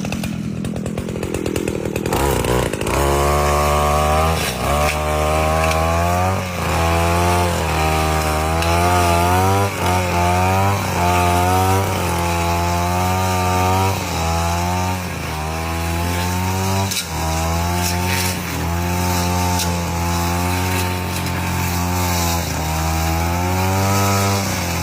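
Two-stroke brush cutter clearing weeds between coffee plants. It runs at a lower speed for the first two seconds, then the throttle rises and falls about once a second as the blade bites into growth.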